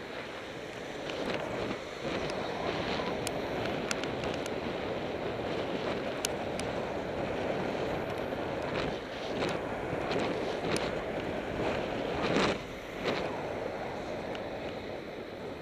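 Wind rushing over an action camera's microphone while cycling in traffic, a steady rumbling hiss. It swells louder a few times in the second half, with a few faint ticks scattered through it.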